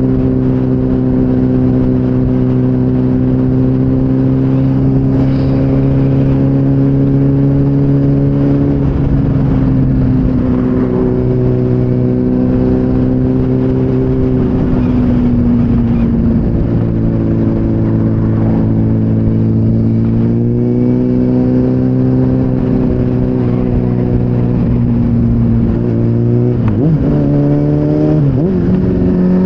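Motorcycle engine heard from on board while riding, holding a steady pitch, easing off twice, then pulling up again, with a few quick rises and drops in revs near the end as it shifts gear. A low wind rush runs underneath.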